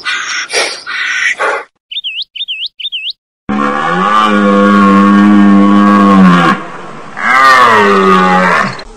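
A duck quacking for the first second and a half, then three quick high chirps, then two long, low animal calls: a steady one about three seconds long and a shorter one that rises and falls in pitch.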